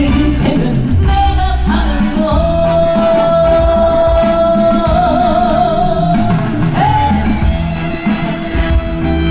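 Live trot song, a male singer over band accompaniment. A long note is held from about two seconds in, wavering into vibrato before it ends.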